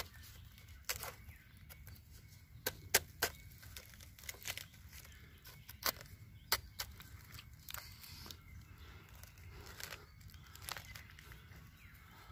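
A knife blade working down through crumbly, termite-eaten rotten log, giving irregular sharp crackles and clicks as it scrapes and breaks the material.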